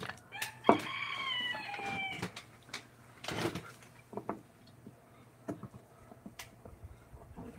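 A rooster crowing once, a call of about a second and a half that falls slightly at its end. Scattered sharp knocks and taps come before and after it.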